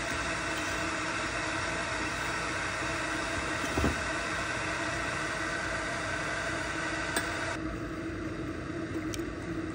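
Electric kettle heating water: a steady rushing hum with a constant tone in it, which drops to a quieter hum about three-quarters of the way through. A soft knock sounds about four seconds in.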